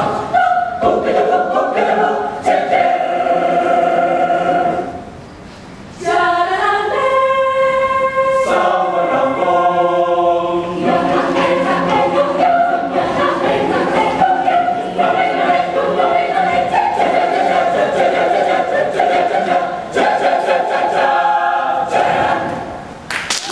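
Mixed choir of men and women singing in harmony, dropping to a quiet passage about five seconds in, then returning full with a held chord, and cutting off just before the end as the piece finishes.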